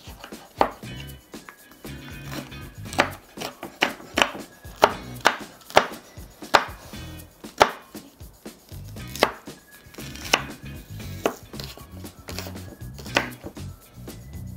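A chef's knife slicing through tomato, green chili pepper and onion and knocking on a wooden cutting board: sharp, irregular knife strokes, roughly one a second.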